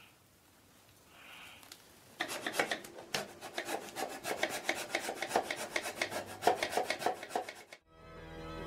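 Small junior hacksaw cutting a thin wooden strip in a miter box: quick, even back-and-forth strokes that start about two seconds in and stop abruptly near the end, where music with sustained organ-like tones begins.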